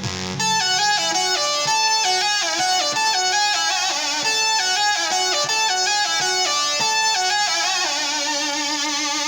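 Roland Fantom synthesizer lead playing a quick run of high notes, then holding a note with a wavering vibrato near the end.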